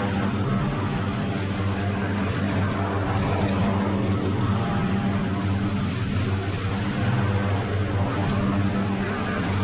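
Riding lawn mower's engine running at a steady speed, a constant low drone.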